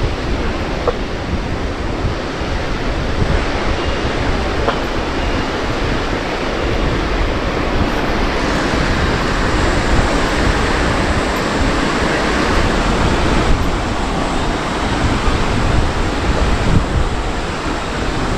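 Wind buffeting the microphone, a steady rushing noise heaviest in the low end.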